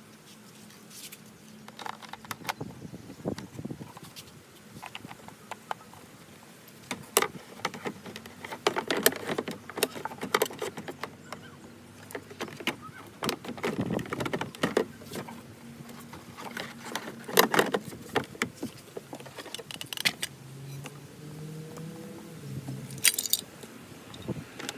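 Irregular clicks, rattles and knocks of parts and tools being handled while the car's tail-light wiring and trim are put back together.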